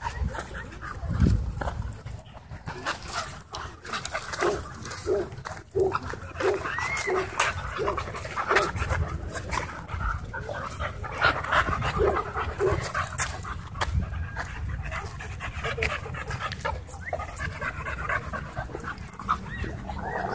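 Several dogs, pit bull puppies and a husky among them, panting and scuffling in rough play close by, with a run of short, quick sounds in the middle and many scuffs and knocks.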